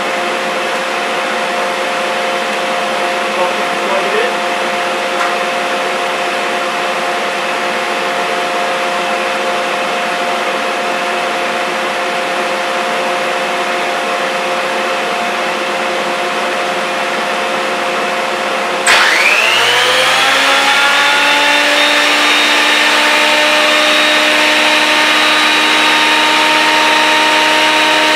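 Shop dust collector running steadily. About two-thirds of the way through, the thickness planer is switched on: its motor's whine rises as it spins up, then settles into a steady run over the dust collector.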